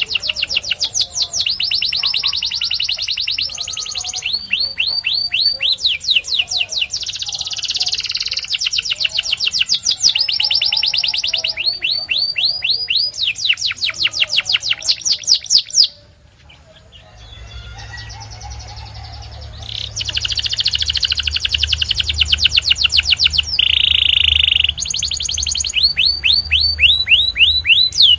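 Domestic canary singing: fast rolls of repeated sweeping notes, each phrase at a different speed, with a short break in the song a little past halfway. A low hum runs under the later part.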